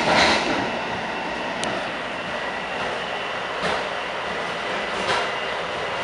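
Steady rumble and hiss of a Bombardier MR-90 electric commuter train car running at speed, heard from inside the passenger car, with a few sharper knocks from the wheels on the track: one at the start and two more near the end.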